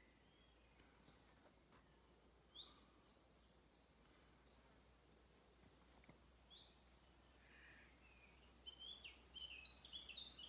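Quiet countryside with faint birdsong: short chirps every second or two, then a quicker run of chirping notes in the last couple of seconds.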